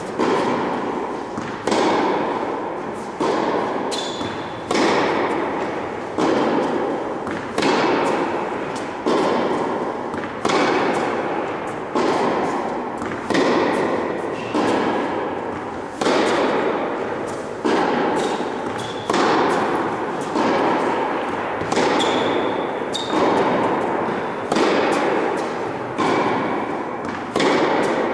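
Tennis ball hit back and forth in a groundstroke rally: a sharp racket strike about every one and a half seconds, each one ringing on in the long echo of a large indoor hall.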